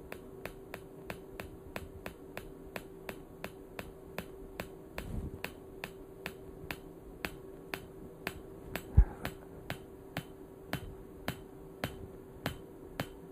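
PEMF-100 electromagnetic pulser's coil clicking with each pulse discharge, evenly at about three clicks a second, over the steady hum of the unit's cooling fans. One louder thump comes about nine seconds in.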